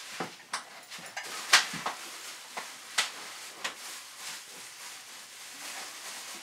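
Handling noise as a small CNC engraver and its hoses are lowered back into a cardboard shipping box: a few sharp knocks and clicks, the loudest about one and a half seconds in, over a steady rustle of packing.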